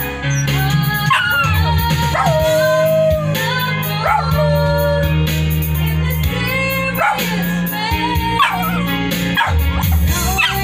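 A dog howling along to music, a series of howls that swoop up and fall in pitch, over a song with a steady bass line.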